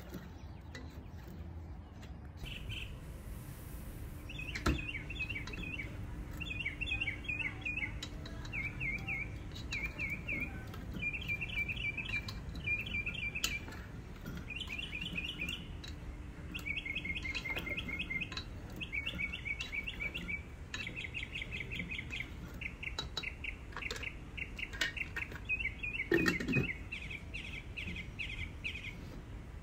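A small bird chirping in quick, repeated series of short chirps that go on nearly throughout, with a few sharp knocks of a spoon against a pot, the loudest near the end.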